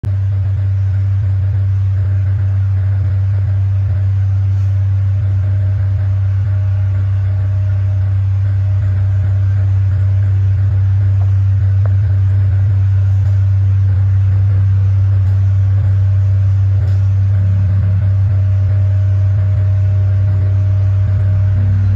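Steady, loud low hum that does not change.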